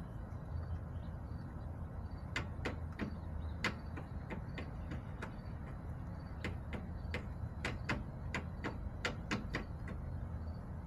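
A chicken pecking at a hard surface: about twenty sharp, irregular taps, two or three a second, starting a couple of seconds in and stopping near the end, over a steady low hum.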